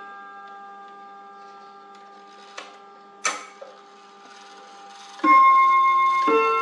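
Jolema three-train chiming wall clock: the ringing of its chime rods fades away, two sharp clicks sound a few seconds in, then the rods begin a chime melody with two struck notes, each left ringing, about five and six seconds in.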